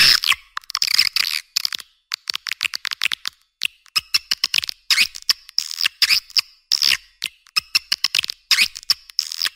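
Edible-nest swiftlet calls played as a lure sound for a swiftlet house: rapid, high twittering chirps and clicks coming in quick, uneven bursts, with the low end cut away.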